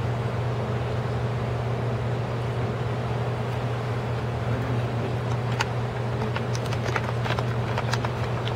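Steady low hum of a large hall's background noise, with a scatter of light, sharp clicks and taps in the second half.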